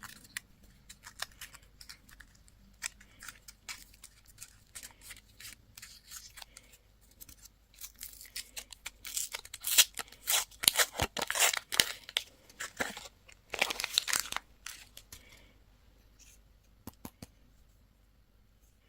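Candy wrappers being torn open and crinkled by hand: scattered crackles, a dense, louder run of tearing and crinkling in the middle, then only a few faint ticks near the end.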